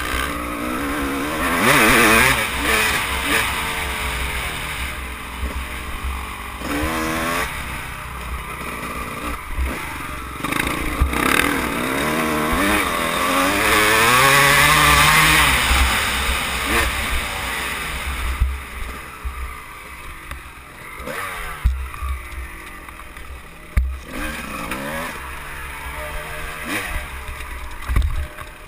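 Dirt bike engine being ridden hard, its pitch rising and falling as the rider accelerates and backs off, under a rush of wind noise. Several sharp knocks come through as the bike bounces over rough ground.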